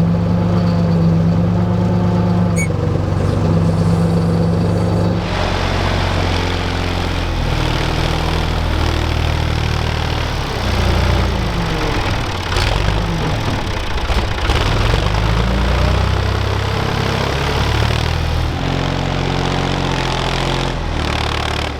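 Engine of a small earth-moving machine running steadily, then louder from about five seconds in, its pitch rising and falling as it works the dirt. One short clank comes near the middle.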